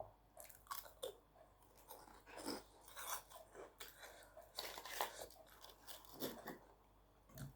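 A person chewing a mouthful of food up close, a run of short, irregular mouth noises.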